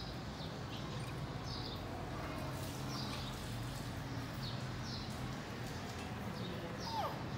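Small birds chirping, short high falling chirps repeated every half second or so over a steady low background hum, with one lower falling call near the end.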